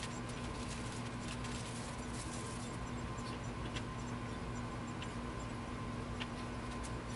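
Small hard items clicking and rattling as hands rummage through a drawer of router bits and bagged small parts, with the clicks thick in the first few seconds and only a few after. A steady low hum runs underneath.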